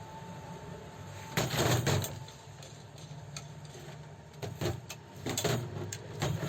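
Irregular clicks and knocks of metal parts and tools being handled while working on an overlock sewing machine, over a steady low hum.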